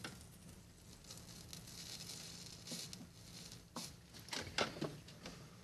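Soldering iron melting solder wire onto a small solder cross pendant: a faint, soft hiss, then several light clicks and taps of the iron tip against the piece in the second half.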